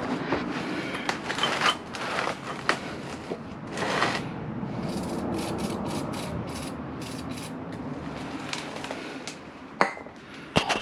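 Metal tools clicking, knocking and scraping as a wrench with a leverage bar is strained against a seized front axle bolt on a Honda NC700X, with a run of short sharp ticks in the middle and a few harder knocks near the end.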